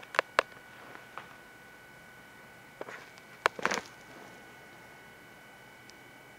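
A few sharp clicks near the start, then a quick cluster of clicks and a brief rustle a little over three seconds in, from the camcorder being handled and moved. Under them runs a faint, steady high-pitched electronic whine.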